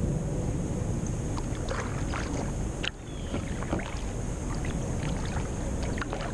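Kayak paddle dipping and pulling through calm water, with scattered splashes and drips, over a steady low rumble of wind on the microphone. A single sharp click about three seconds in.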